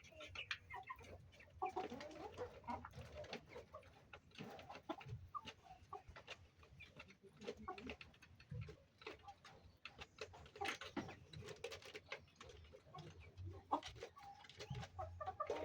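Domestic chickens clucking: many short calls, mixed with frequent small clicks.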